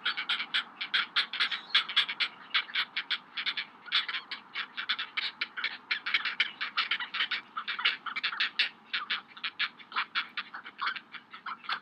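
Great blue heron nestlings begging: a fast, unbroken run of short, sharp chattering calls, about five or six a second.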